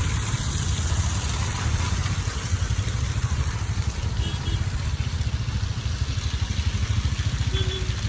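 A vehicle driving: a steady, pulsing engine-and-road rumble under an even hiss.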